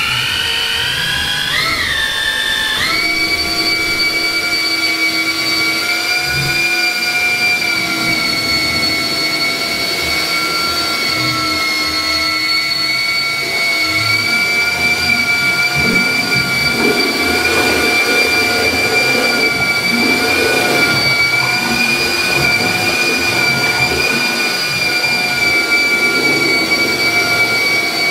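A steady, high-pitched electric motor whine that wavers and rises over the first three seconds, then holds one pitch.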